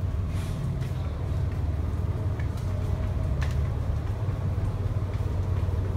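Steady low drone of a passenger ship's engines and machinery heard inside a below-deck corridor, with a few faint taps.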